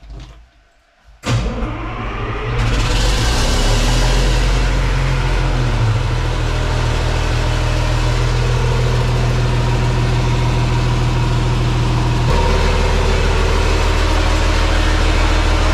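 The truck's onboard Caterpillar diesel generator engine starts up about a second in, catches and settles into a loud, steady run, heard from inside the cab. Its note shifts slightly about three-quarters of the way through.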